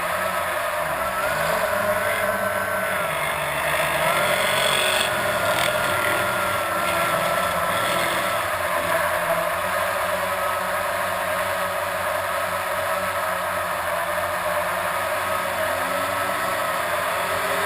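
Blade 350 QX quadcopter's electric motors and propellers whining steadily, the pitch of the whine shifting up and down as the motors speed up and slow down. A fainter engine is heard underneath, rising in pitch near the end.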